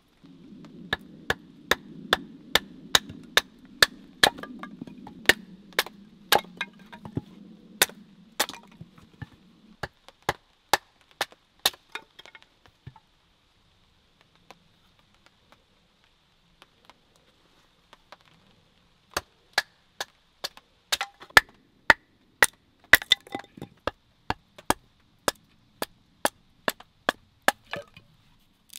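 Bushcraft knife being batoned through small sticks of wood: a run of sharp wooden knocks and cracks, roughly two a second, that thins out to a few scattered taps in the middle and then picks up again.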